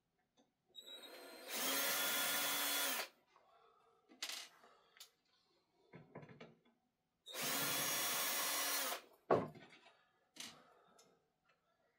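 Cordless power screwdriver whirring in two runs of about a second and a half each, backing out the screws that hold a full-range driver in a small vintage bookshelf speaker cabinet. Light clicks and knocks of handling fall between the runs.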